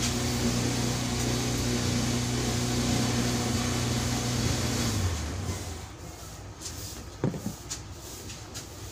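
Electric fuel pump motor running with a steady hum, then switched off about five seconds in, its pitch sinking as it spins down. A single click follows a couple of seconds later.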